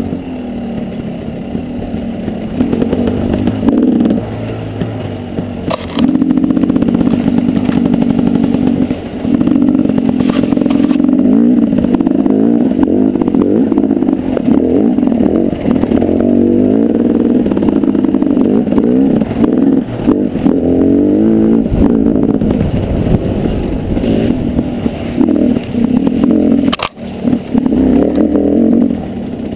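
Off-road motorcycle engine ridden over a rough, rocky trail, the throttle opening and closing so its pitch keeps rising and falling. Rattles and a few sharp knocks from the bike over the ground.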